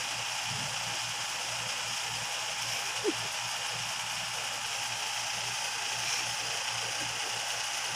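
Steady background hum and hiss with a faint mechanical rattle, and one short faint sound about three seconds in.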